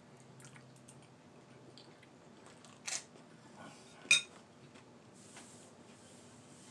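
A metal fork clinks twice against a ceramic bowl, about three and four seconds in, the second clink ringing briefly, over quiet chewing.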